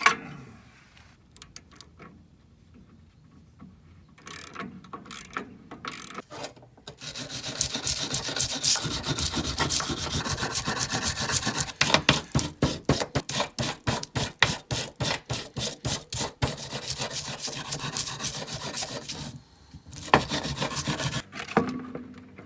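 Hand filing: rapid back-and-forth rasping strokes that start about seven seconds in, settle into about three strokes a second, and stop shortly before the end, after a few light clicks.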